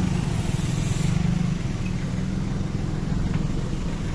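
An engine idling steadily: a low, even rumble.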